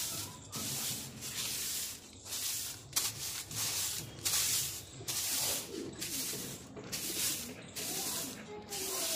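Straw broom sweeping a stone-tiled floor in repeated swishing strokes, about two a second.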